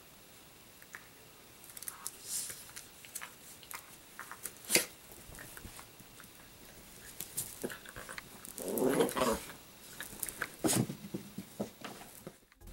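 Italian greyhound puppies play-wrestling on bedding: scattered scuffling and rustling, one sharp click about five seconds in, and a short growl about nine seconds in.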